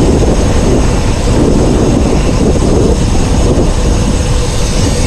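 Wind buffeting the microphone of a camera on a road bike's handlebars as the bike rolls downhill: a loud, steady, rumbling rush.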